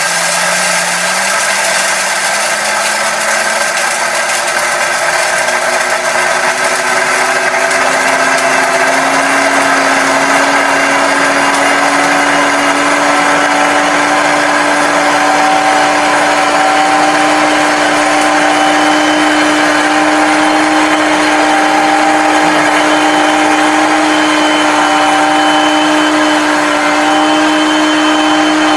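2200-watt high-power blender motor running, grinding dry soybeans into flour. Its pitch climbs in steps over the first nine seconds or so as the automatic speed control brings it up to full speed, then holds steady over a dense grinding hiss.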